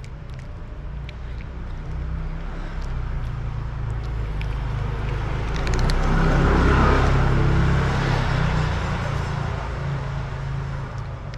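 A motor vehicle passing on the street: its low engine hum and tyre rush swell to a peak about six to seven seconds in, then fade. Faint sharp clicks of a cat crunching dry kibble close by sound over it.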